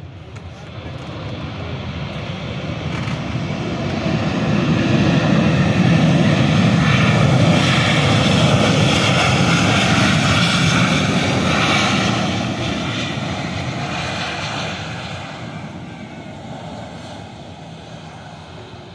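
Jet engine noise from a Batik Air Boeing 737-800 landing and rolling along the runway. It swells over the first few seconds, is loudest for several seconds in the middle with a whine on top of the roar, then fades away.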